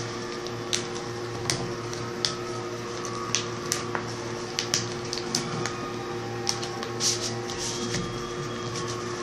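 A sheet of paper being folded and creased by hand, giving short crisp crackles and rustles at irregular intervals, over a steady low hum.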